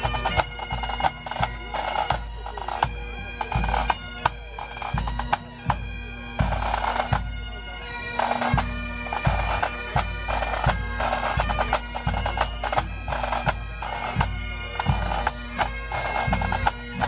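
Bagpipes playing a tune over a steady drone, with drums beating throughout.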